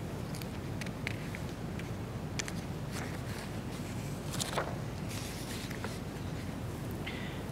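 Quiet room tone: a steady low hum with a few faint clicks and rustles.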